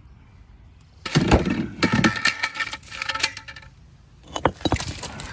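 Bricks clattering and clinking against each other as they are shifted by hand, with a ringing clink among the knocks. The clatter comes in two spells: a long one starting about a second in, and a shorter one near the end.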